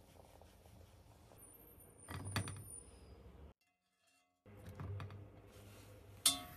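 Kitchen handling sounds as boiled potato sticks are lifted from the pot with a wire skimmer and dropped into a plastic colander: two short clattering rustles with a second of dead silence between them, then a single sharp clink near the end.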